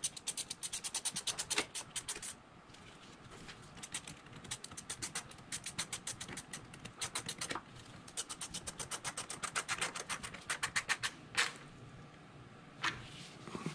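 Hand ratchet wrench clicking in quick runs of about ten clicks a second, stopping and starting as it is worked back and forth, with two single knocks near the end.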